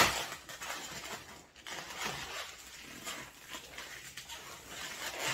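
Latex twisting balloons rubbing and squeaking against each other as they are twisted together, with a sharp click right at the start.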